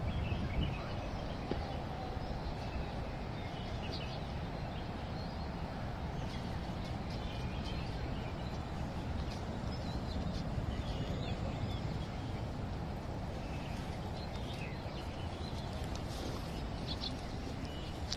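Small birds chirping now and then over a steady low background rumble.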